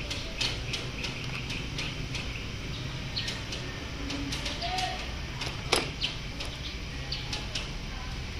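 Steady low background hum with scattered light clicks and taps of multimeter test leads and wires being handled at a car battery; one sharper click a little under six seconds in.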